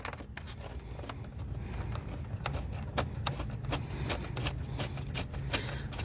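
Scattered, irregular light clicks and knocks of a bolt and metal and plastic parts being handled while the cooling-fan shroud bolt is fitted, over a steady low hum.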